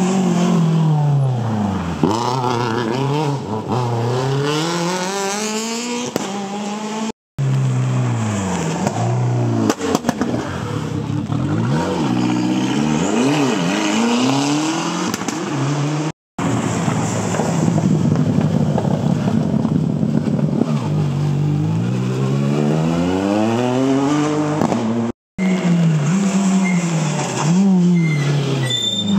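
Rally cars on a special stage, engines revving hard, the pitch dropping and climbing again and again as they brake, shift and accelerate. The sound breaks off abruptly three times, each time picking up straight away with another car.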